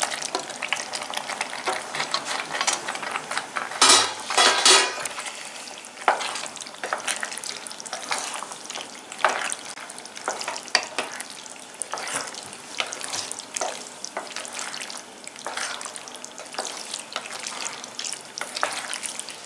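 Wooden spatula stirring shell pasta into bubbling tomato sauce in a nonstick pan: irregular scrapes and soft clicks over a steady sizzle, with a couple of louder strokes about four seconds in.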